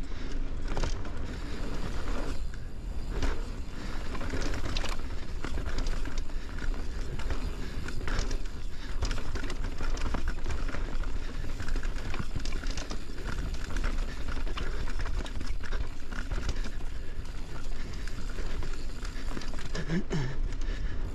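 Mountain bike riding fast down dirt singletrack: knobby tyres rolling over dirt and roots, with constant clatter and knocks from the bike over bumps and a low rumble of wind on the mic.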